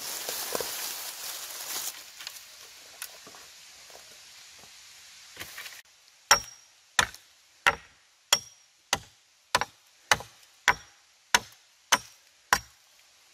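Wood being chopped with an axe: eleven sharp, evenly spaced strikes about three every two seconds, each with a brief ringing note, starting about six seconds in. Before that, quieter rustling and a few light knocks.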